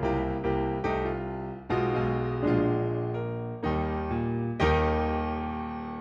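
Background piano music: a series of struck notes and chords, ending on a chord that rings on and fades.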